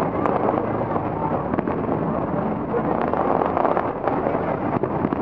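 Aerial fireworks going off at a distance: scattered pops and crackles over a steady, dense background din.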